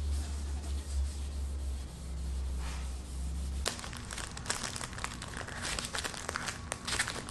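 A low hum with faint rubbing. About halfway through it stops suddenly and gives way to close, crackly crinkling as a sheet of waterproof wet/dry sandpaper is handled and peeled from its thin plastic sleeve.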